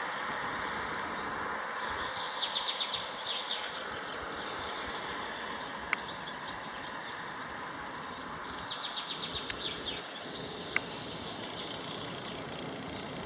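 River in spring flood rushing with a steady noise. A small bird sings a quick trill twice, and there are a couple of single sharp clicks.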